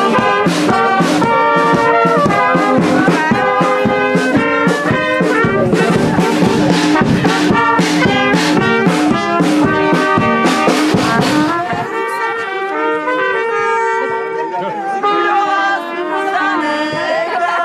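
Brass band music with a steady beat. About twelve seconds in, the drum and bass stop and quieter, thinner playing goes on.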